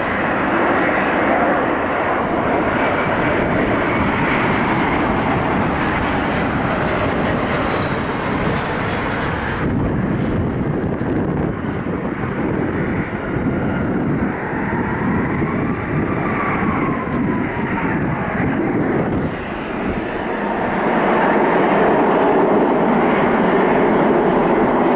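Jet airliner engines running at close range across several shots: rear-engined Delta jets climbing out and on a takeoff roll, with an engine whine that rises and falls midway, then a Southwest Boeing 737-700's CFM56 engines running on the runway, louder near the end.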